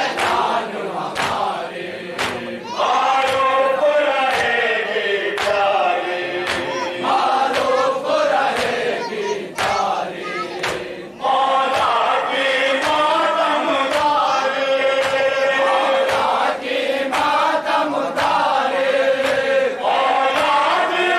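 A group of men chanting a nauha (Shia lament) in chorus into a microphone, with sharp, evenly spaced strikes of matam (hands beating the chest) keeping time, about one and a half a second.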